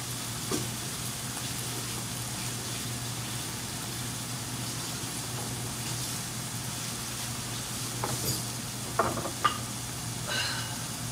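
Food sizzling steadily in a frying pan over a low, steady hum, with a few light clicks and knocks near the end.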